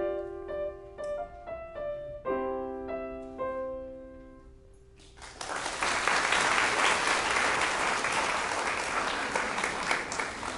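Grand piano playing the last phrases of a piece, ending on a held chord that dies away. About five seconds in, audience applause breaks out and then tapers off near the end.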